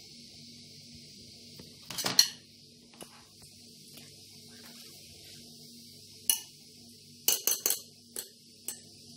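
Metal spoon clinking against a ceramic bowl while scooping filling: a few clinks about two seconds in, one after about six seconds, then a quick run of several near the end.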